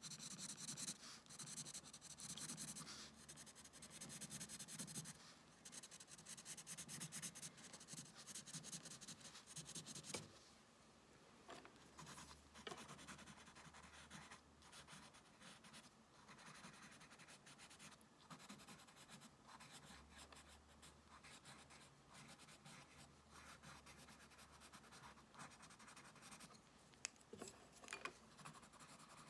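Pencil crayon scratching across sketchbook paper in quick, close strokes. The strokes are busy and dense for about the first ten seconds, then stop abruptly and carry on lighter and sparser.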